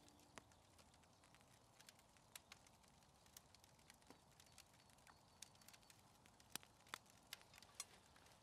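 Faint, irregular crinkles and light clicks of hands handling the wrapping of a joint of raw beef, with a few sharper clicks near the end.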